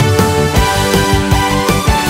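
Background music with a steady beat and sustained synth tones.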